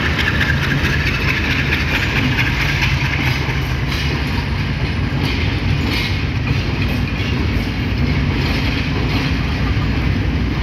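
Passenger coaches of a departing diesel-hauled train rolling past, a steady rumble of wheels on the rails with occasional clacks over the rail joints.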